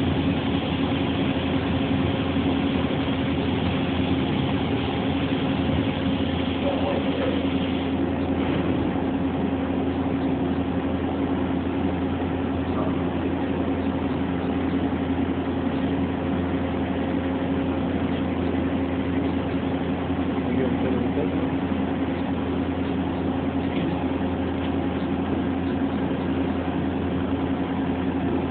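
CNC machine running with a steady, even hum, a low tone held over a hissing haze.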